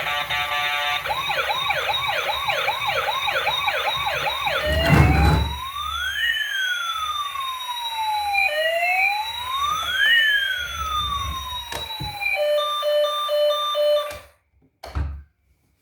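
Electronic toy siren: a fast yelp of about two and a half sweeps a second, then a slow wail of two tones rising and falling against each other, then a short stepped beeping pattern, cutting off suddenly near the end. A thump about five seconds in is the loudest single sound, and a knock follows after the siren stops.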